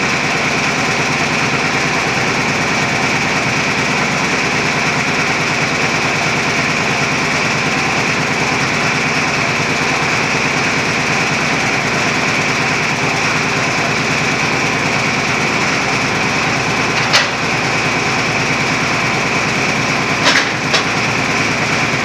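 Underground roof-bolting rig running steadily with its boom pressed to the rock roof, working a bolt into the gallery ceiling. A sharp click about two-thirds of the way through and two more close together near the end.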